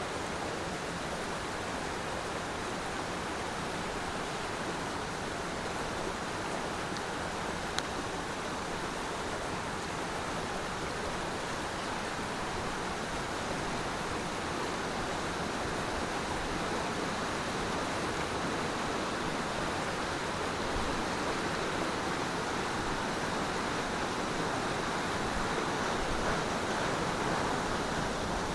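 Waterfall rushing, a steady hiss of falling water that grows slightly louder in the second half.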